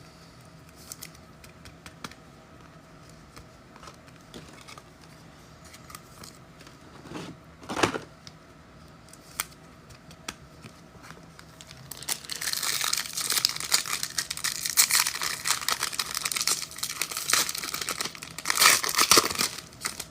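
Foil wrapper of a football trading-card pack being torn open and crinkled, loud and continuous from about twelve seconds in, after a mostly quiet stretch of light handling clicks with one brief loud rustle about eight seconds in.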